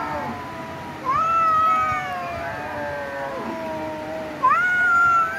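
Cats meowing in long, drawn-out yowls, several pitches overlapping; a louder yowl rises in about a second in and another near the end.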